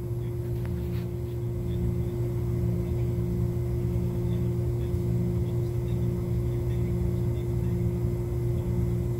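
Steady low hum with a few held tones and no sudden events: room noise from electrical or machine equipment.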